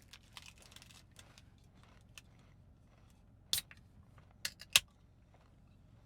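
Handling noises: soft rustling, then a few sharp clicks about three and a half seconds and four and a half seconds in, the last the loudest.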